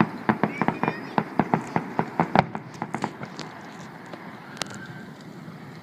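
Fireworks crackling: a quick run of sharp pops that thins out after about three seconds, with one last pop near the end.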